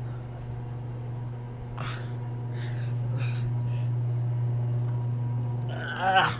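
Heavy breathing and short effortful puffs of someone straining to climb, ending in a short strained grunt near the end, over a steady low hum.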